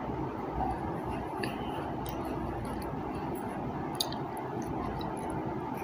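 Steady background hiss with faint eating sounds: fingers picking at fruit on a plate and chewing. There is a sharp click about four seconds in.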